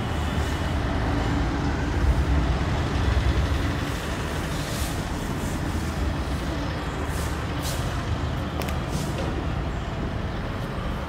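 Felt whiteboard duster wiping across a whiteboard, with a few short scratchy strokes about halfway through, over a steady low background rumble.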